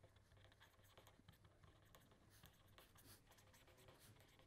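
Faint scratching of a pen writing on paper: a run of small, irregular strokes.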